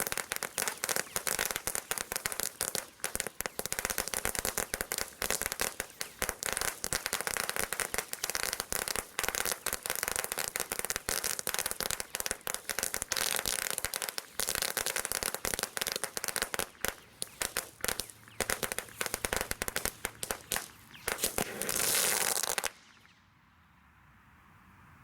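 Celebration Cracker Large firework going off in a dense, rapid stream of crackling pops. It ends in a louder hissing burst and cuts off suddenly about 23 seconds in.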